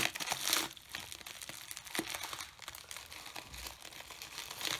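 Packaging being handled and opened: crinkling and rustling, loudest in the first half-second, then quieter scattered crackles with another rustle near the end.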